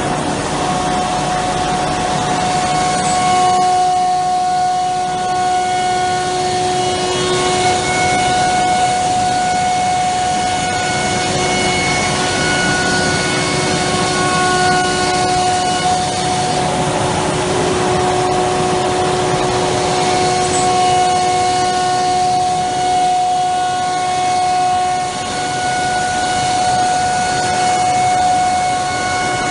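Cosmec Conquest 715 flat-table CNC router running: a steady whine made of several held tones over a constant noisy rush.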